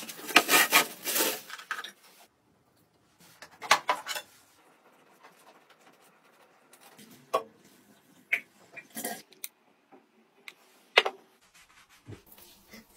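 Household objects being handled: a string of short clicks, knocks and rustles, busiest in the first second and a half, then single knocks spaced out a few seconds apart.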